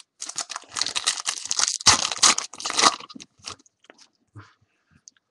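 A foil trading-card pack being torn open and crinkled, a dense crackle lasting about three seconds, followed by a few light clicks and rustles as the cards are handled.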